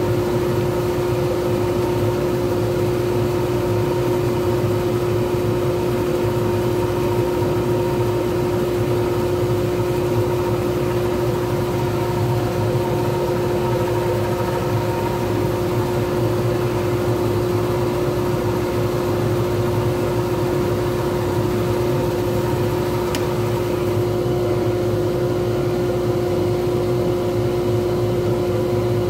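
Wood lathe running at a steady speed with a pen blank spinning between centres: a constant motor hum and whine that does not change.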